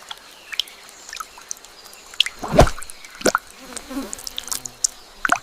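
Water dripping and plopping in irregular drops, with one louder, deeper plop about two and a half seconds in.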